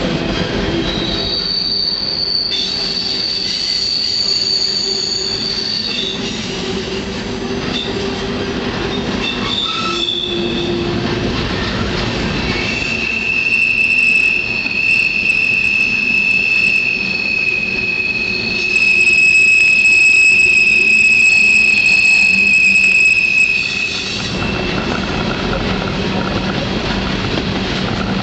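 Freight train heard from on board, rolling steadily with its steel wheels squealing against the rails. A high-pitched squeal comes from about a second in until about six seconds. A louder, lower squeal starts near the middle and is loudest shortly before it stops, a few seconds before the end.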